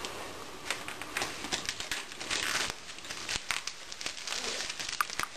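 White packing wrap crinkling and rustling as it is pulled and unwound from a ball-jointed doll's head, with small clicks and scrapes of handling.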